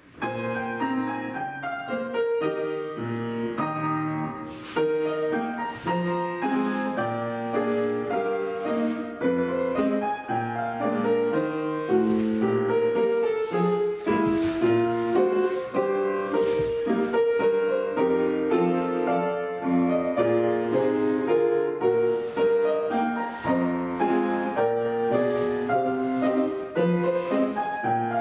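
Piano playing a classical-style ballet-class accompaniment in a steady, even rhythm for a barre exercise, starting suddenly at the very beginning.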